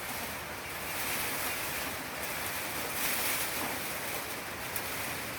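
Strong wind blowing with the rush of sea surf, a steady roar that swells about a second in and again around three seconds.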